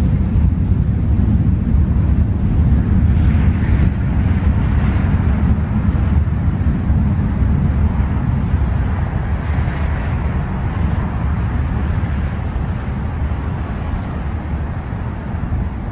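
Wind rumbling on the microphone over the steady drone of distant highway traffic, swelling about three seconds in and again around ten seconds.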